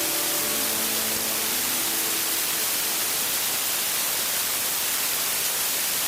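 Steady hiss of light-aircraft cockpit noise as recorded through the intercom, with a few sustained music notes fading out in the first two seconds.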